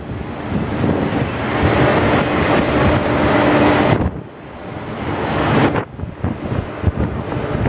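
Boeing 767-300's jet engines at low taxi power, a steady rumble with a held tone. About four seconds in the sound cuts and drops, then builds again and breaks into gusty wind buffeting on the microphone near the end.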